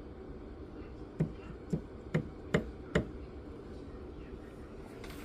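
Five light taps of a rubber mallet on a silver box chain, about two a second, knocking down links that stick up beside a soldered joint.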